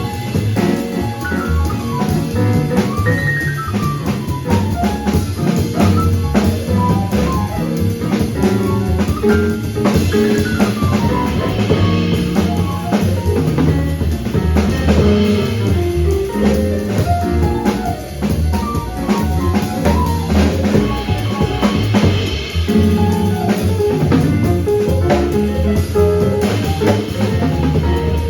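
Live small-group jazz: drum kit, bass, piano and saxophone playing an up-tempo tune, with quick runs of notes rising and falling over the bass line and busy drumming.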